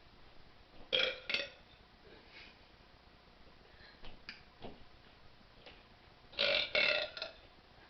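A girl burping on purpose: two short burps about a second in, then a run of burps near the end.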